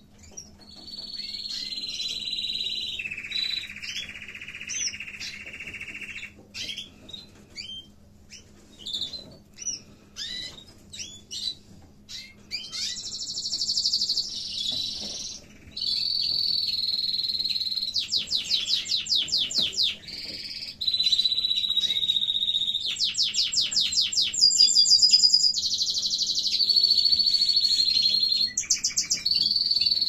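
Canary song: long trills held on one pitch for a second or two each, jumping from pitch to pitch, with fast rattling trills in the second half. Short high chirps fill a stretch near the middle.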